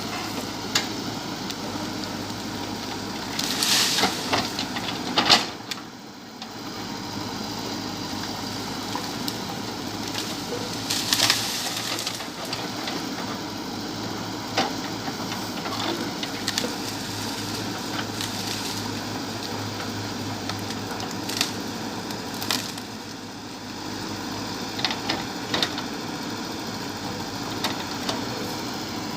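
JCB 3DX backhoe loader's four-cylinder diesel engine running steadily, with sharp cracks and knocks scattered through, a cluster around four seconds in and the loudest just after five seconds.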